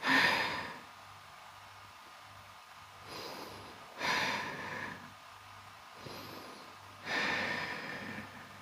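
A person's slow, deep breathing while holding a yoga stretch: three strong breaths, each a rush of air that fades, about three to four seconds apart, the first the loudest, with a fainter one just before the second.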